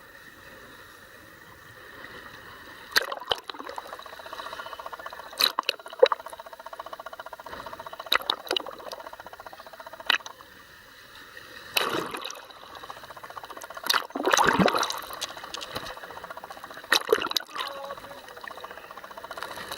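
Water bubbling and splashing in irregular short bursts over a faint steady hum.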